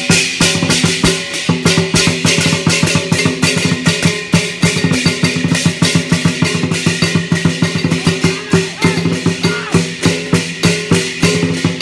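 Lion dance percussion: a large lion dance drum beaten in a fast, driving rhythm with clashing brass hand cymbals, starting abruptly and continuing without pause.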